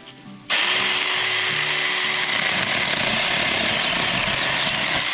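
Small cordless battery mini chainsaw starting about half a second in and then running steadily at full speed as its chain cuts into a thin woody stem.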